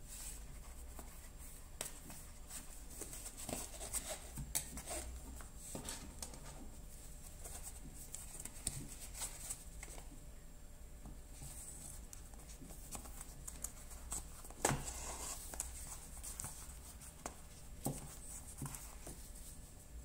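Hand stitching leather: needle and thread pulled through the stitch holes, with soft rustling of the thread against the leather and small clicks of handling, plus a few sharper clicks.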